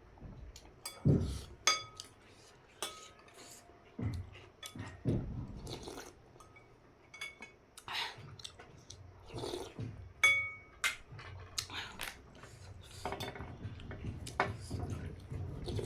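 Eating utensils clinking and scraping against a bowl of noodles and soup: a dozen or so sharp clinks, some of them ringing briefly, at irregular intervals.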